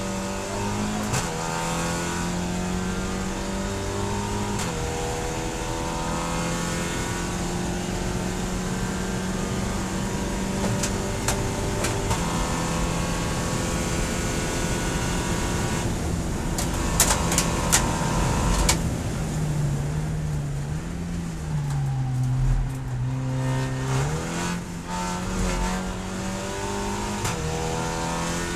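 Volkswagen Scirocco GT24 race car's turbocharged four-cylinder engine heard from inside the cockpit. It pulls hard through upshifts from third to sixth gear, the note climbing and stepping down with each shift. Then a few sharp clicks, falling pitch through downshifts as it slows, and it accelerates again near the end.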